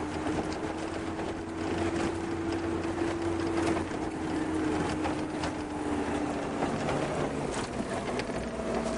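A vehicle engine running at a steady pitch while driving, the note sagging slightly and dropping away about two-thirds of the way through, over a low rumble and wind noise.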